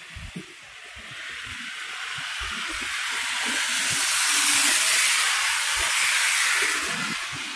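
A vehicle passing on a snow-covered street: tyre hiss through wet snow that swells over a few seconds, peaks, then fades.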